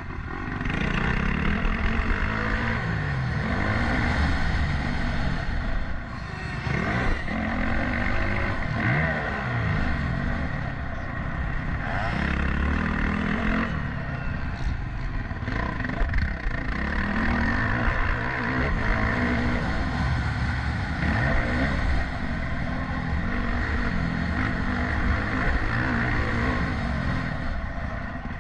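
Motocross bike engine under race throttle, its pitch rising and falling again and again as the rider accelerates and backs off.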